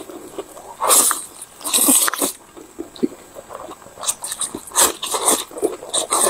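Close, loud slurping of wide flat noodles, several slurps about a second apart, with chewing between them.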